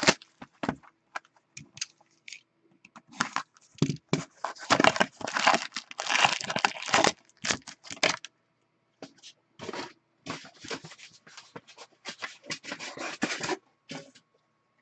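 Plastic shrink-wrap being torn and crinkled off a box of SPX hockey cards, then foil card packs rustling as they are pulled out of the box. The tearing and crinkling come in irregular bursts, busiest around the middle.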